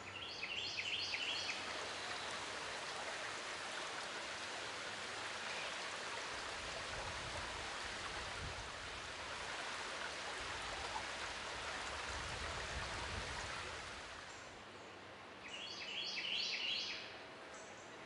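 Steady water noise, like rain pattering on a pond surface. Bursts of quick, high chirps come near the start and again near the end.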